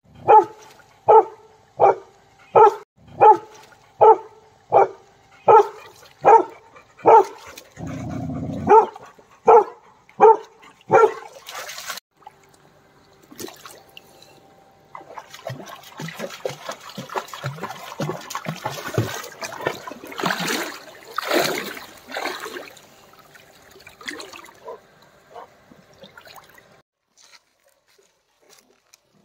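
A dog barks over and over at an even pace, about one bark every three-quarters of a second, for the first twelve seconds or so. Then the barking stops and water splashes and trickles as dogs wade through a shallow stream.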